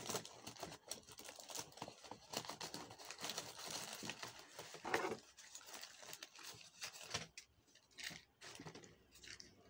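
Hands rummaging through things: irregular rustling and crinkling with light clicks and small knocks.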